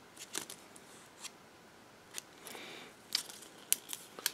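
Cardboard product sleeve being handled and turned over in the hands: faint, scattered rustles and small crinkling clicks, a few sharper ones near the end.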